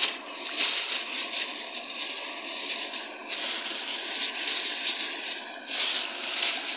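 Shallow stream water running over rocks, with splashing and sloshing as a hand swishes a clear plastic bag through the water. The water noise swells louder about half a second in, again around three seconds, and near the end.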